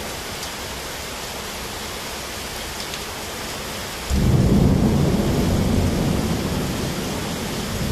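Steady rain hiss, then about four seconds in a sudden loud thunderclap that rolls on as a low rumble, slowly fading.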